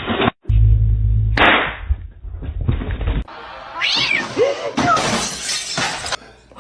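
A cat meowing, a few wavering calls about four to five seconds in, after a stretch of loud, low rumbling noise from another clip.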